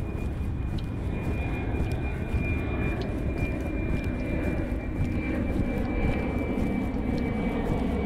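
Airplane flying over: a steady low rumble with a thin high whine, the rumble growing heavier near the end.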